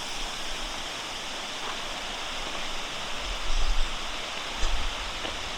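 Creek waterfall rushing steadily, an even hiss of falling water. Two brief low rumbles come through a little past the middle.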